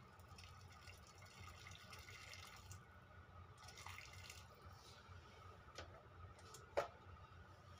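Faint hiss of water heating in a metal cooking pot on a stove, not yet at a rolling boil, coming and going in two soft stretches. A short sharp click sounds near the end.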